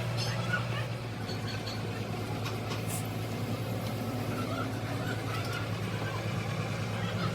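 Engine running steadily at idle: a low, even hum with a rapid regular pulse.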